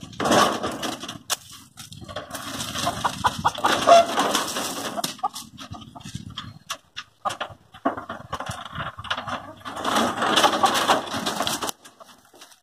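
Hens clucking and squawking inside a wooden hanging coop while it is handled and taken down from its post, with irregular knocks and rattles of the wood and wire frame.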